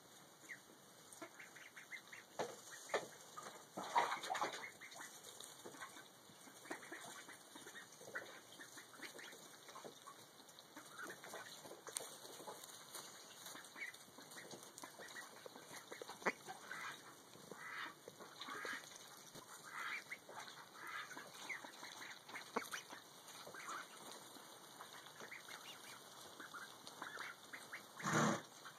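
Ducks calling: many short, scattered calls, with a louder burst about four seconds in and another near the end.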